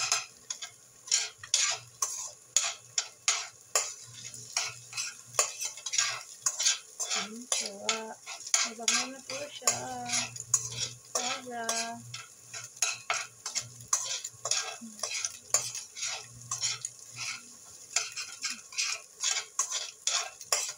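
A spatula scrapes and taps against a stainless steel pan in quick repeated strokes as scrambled egg is stirred and broken up, with a light sizzle of frying under it.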